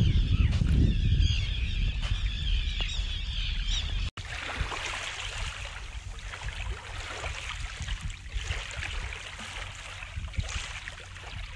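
Wind buffeting the microphone, with birds calling over it. After about four seconds this gives way to small sea waves washing onto a pebbly beach, swelling and fading every couple of seconds.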